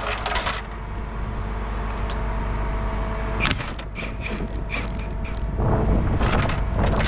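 New chain load binders and chains being handled: a few sharp metallic clicks and creaks about halfway through, then louder clattering near the end, over a steady low engine hum.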